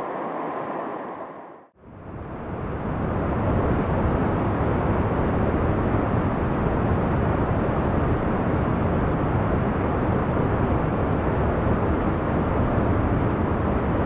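Waterfall pouring over rock into a pool: a steady rushing of falling water. It fades in after a brief drop to silence about two seconds in, swells over the next two seconds, then holds steady.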